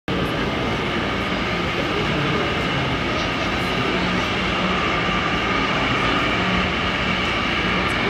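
Radio-controlled Caterpillar articulated dump truck model running slowly through loose soil: a steady, unbroken mechanical drone over the hum of a busy exhibition hall.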